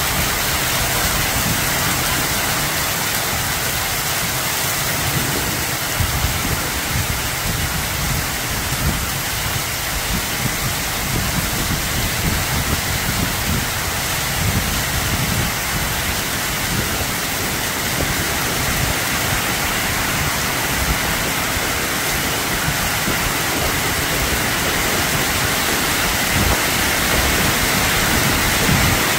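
Heavy downpour of rain mixed with hail, a steady dense hiss of falling water and hailstones.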